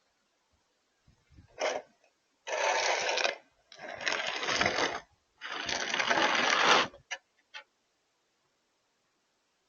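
All-metal snow shovel scraping snow along a driveway: one short scrape, then three long pushes of about a second each, followed by a couple of light knocks.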